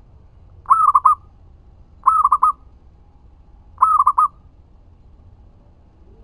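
Zebra dove (perkutut) cooing: three short phrases of quick, clipped coo notes, each about half a second long and spaced about a second and a half apart.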